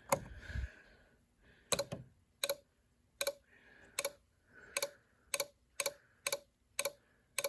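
Snap Circuits fire alarm circuit clicking in an even pulse, about once every half to three-quarters of a second, the clicks coming a little faster partway through as its rate is turned back up toward normal. A single knock sounds right at the start.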